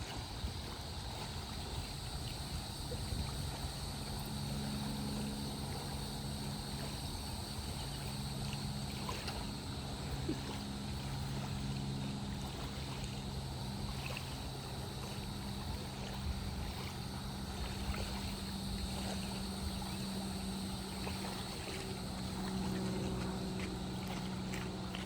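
A steady low droning hum over an even wash of rushing water, with a few faint ticks.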